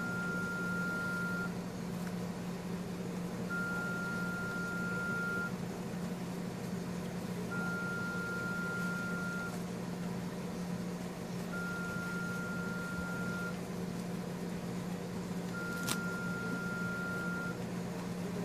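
An electronic alarm beeping: a steady single high tone about two seconds long, repeating every four seconds, over a steady low hum. One brief click comes near the end.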